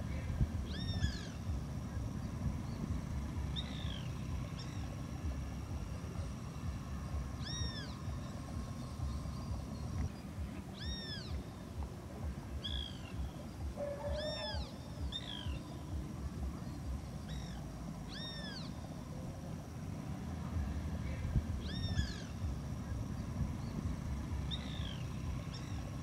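An animal's short mewing calls, each rising then falling in pitch, repeated every few seconds over a steady low rumble and a faint high whine.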